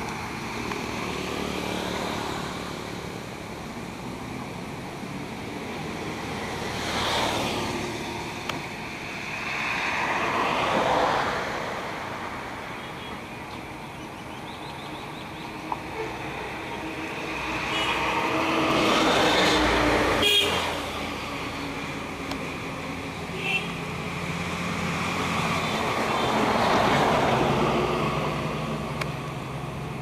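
Road traffic going by: motor vehicles pass one after another, each a slow rise and fall in level lasting a few seconds, over a steady background hum, with a few short sharp clicks in between.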